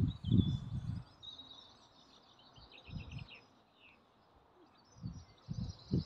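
Bursts of low rumble from wind buffeting the microphone, loudest in the first second and again near the end, with small birds chirping and trilling in the riverside trees.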